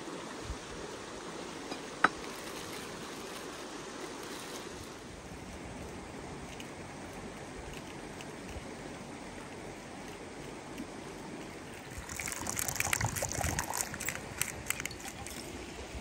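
A fast mountain stream rushing, a steady watery hiss. A single sharp click about two seconds in, and a spell of crackly rustling near the end.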